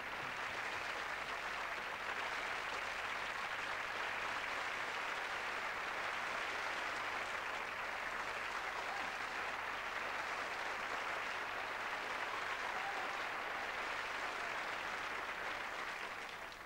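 Studio audience applauding steadily, the applause dying away near the end.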